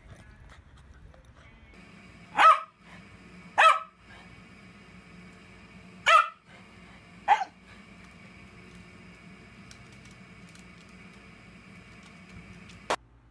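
A dog barking four times, single sharp barks a second or more apart, over a faint steady hum.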